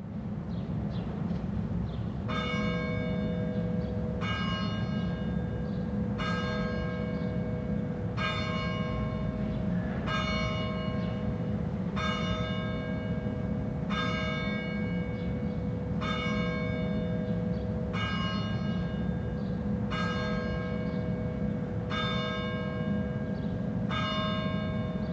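Church bell tolling slowly, about one stroke every two seconds, each stroke ringing on with a lingering hum. The bell starts about two seconds in and sounds about a dozen times over a steady low rumble.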